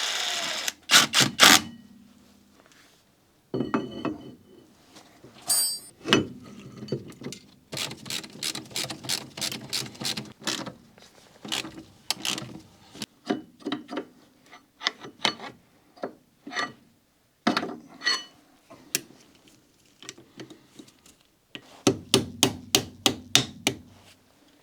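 Hand tools working on metal brake parts: scattered clicks, clanks and knocks as a front brake disc and caliper are refitted, with a brief rush of noise at the start and a quick run of clicks near the end.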